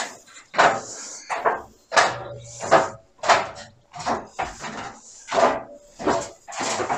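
Footsteps going down a spiral staircase with steel checker-plate treads: about ten sharp knocks at an even walking pace, each with a short ring after it.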